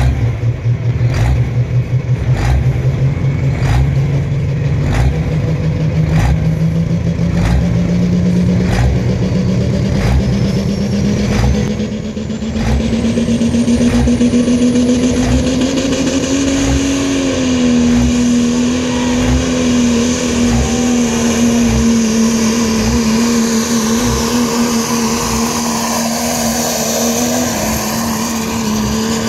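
Turbocharged diesel pickup pull truck at full throttle dragging a pulling sled. The engine note climbs steadily for about sixteen seconds, dips slightly and then holds high, with a high turbo whistle rising partway through and a regular knock about twice a second over the first dozen seconds.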